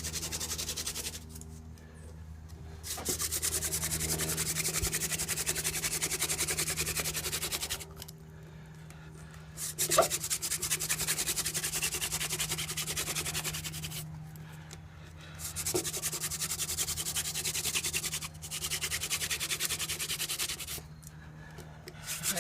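Hand-drill friction fire: a mullein-stalk spindle spun between the palms grinds into an eastern white cedar hearth board. The rubbing comes in runs of several seconds, with brief pauses between them, while the drill is worked down toward an ember that is already smoking.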